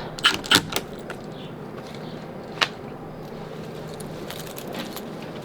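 A few small clicks and one sharp click of metal snap fasteners being handled and set in place on screen-door fabric, over a steady low background hiss.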